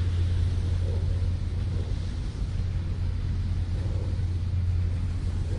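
Steady low rumble of an idling engine, a constant deep hum that holds level throughout.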